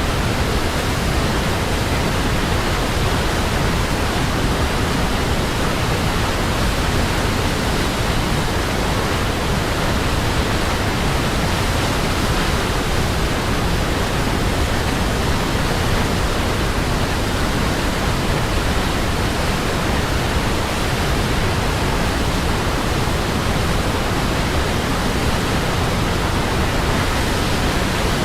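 Waterfall, falling water rushing in an even, unbroken wash of noise that stays steady throughout.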